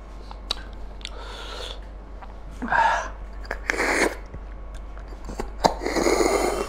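Close-miked eating of mutton curry by hand: sharp wet mouth clicks, with four breathy slurping and sucking bursts as meat is sucked off the bone, the middle two the loudest.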